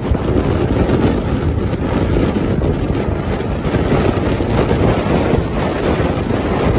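Steady road and wind noise of a car driving at highway speed, with wind buffeting the microphone.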